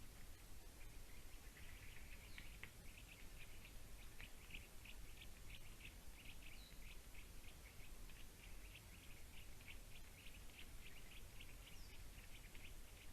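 Faint bird calls: a long, fast series of short, high notes, about three a second.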